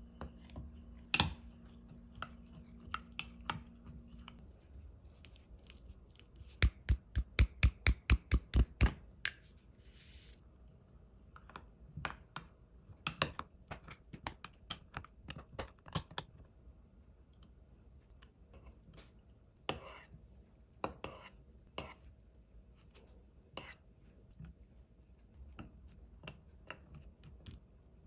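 Metal spoon clinking and scraping against a drinking glass while yogurt, oats and cocoa are stirred. There is a quick run of about ten knocks a few seconds in, with scattered clicks before and after.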